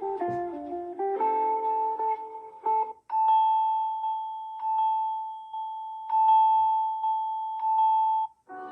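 Samsung Galaxy S22 Ultra stock ringtones playing. First comes a melodic tune of many quick notes, which stops about three seconds in. After a brief break, another ringtone strikes a single high note again and again, about every second and a half, each note left ringing.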